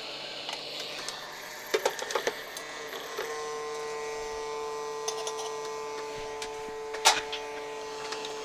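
Hot-air rework station blowing a hissing stream of air that dies away, then light clicks of tweezers and small parts on the bench. A steady hum sets in a few seconds in.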